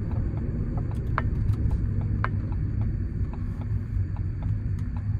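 Ford Courier's 1.5-litre diesel engine and tyre noise heard from inside the cabin while driving, a steady low rumble. Light short clicks sound every fraction of a second over it.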